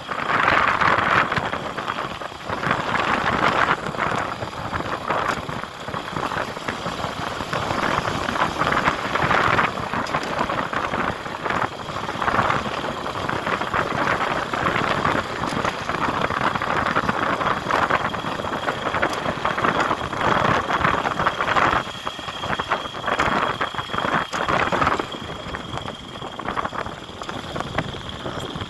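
A motor vehicle driving, a steady rush of engine and road noise that rises and falls, with a faint high whine.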